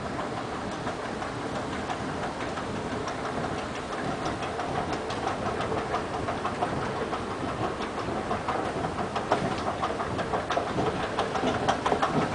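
Airport moving walkway running: a steady hum under a rapid, rhythmic clicking of its treads. The clicking grows louder and denser over the last few seconds.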